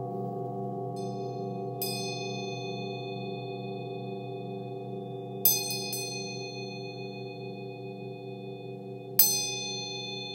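Himalayan singing bowls ringing together in a steady, wavering low hum. A small, high-pitched hand-held chime is struck over it: faintly about two seconds in, in a quick cluster past the middle, and once loudly near the end, each strike ringing on brightly.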